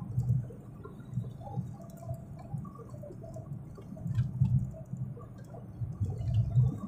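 Road noise inside a moving car: a low rumble from the tyres and engine that swells and fades, loudest about four seconds in and again near the end.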